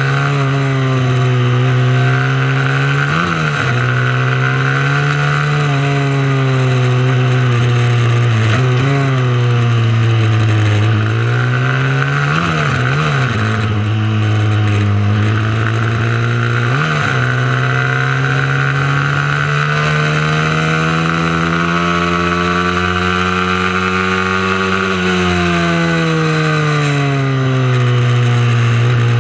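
Mini motorcycle engine under racing load: one engine's pitch rises and falls over and over as the rider accelerates and backs off, with several brief sharp blips. In the second half it climbs steadily for a long stretch, then drops back.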